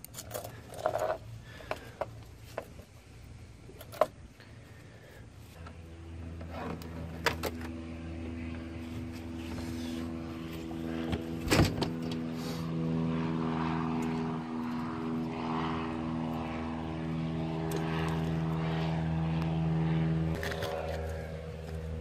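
Outboard motor idling steadily in neutral, a low even hum that grows louder from about six seconds in. Light metal clicks and handling come early, and a sharp click sounds a little past halfway.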